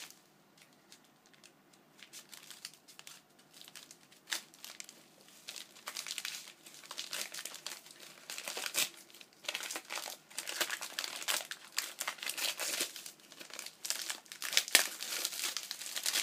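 Packaging being crinkled and rustled by hand as items are unwrapped, with some tearing. Faint for the first couple of seconds, then busy, irregular crackling.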